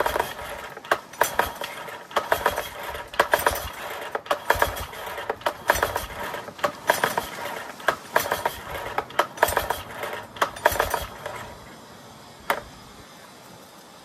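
Yamaha 9.9hp four-stroke outboard being turned over on its recoil pull-start, about ten pulls at roughly one a second, each a burst of clicking as the engine cranks without firing, because no fuel is reaching the carburettor. The pulls stop about eleven seconds in, and one sharp click follows a little later.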